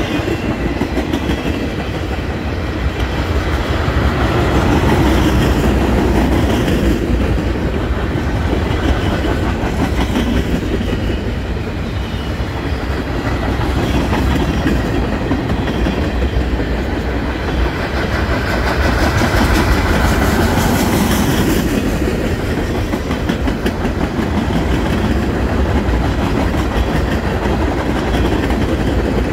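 Empty railroad flatcars of a freight train rolling past, the steel wheels clicking and rumbling steadily on the rails.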